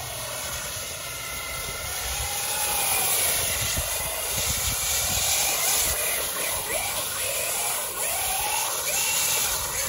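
Losi Super Rock Rey RC truck's electric motor and drivetrain whining, the pitch rising and falling again and again as the throttle is worked while it drives across the ice.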